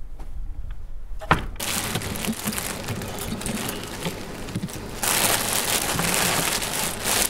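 A single sharp knock about a second in, then plastic bags rustling and crinkling as they are handled, louder for the last two seconds.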